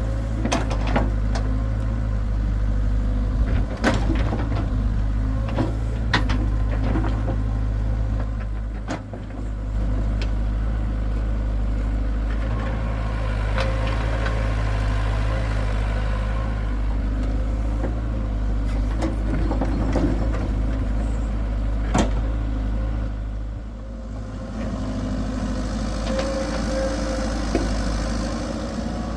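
Hitachi excavator's diesel engine running steadily, with occasional sharp knocks.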